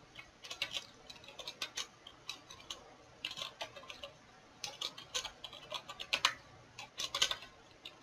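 Computer keyboard being typed on: irregular runs of short key clicks with brief pauses between them.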